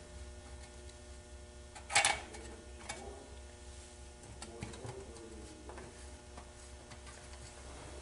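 Metal parts and hand tools clinking while the transmission oil pan's bolts are put in: one sharp clink about two seconds in, then a few faint clicks, over a steady low hum.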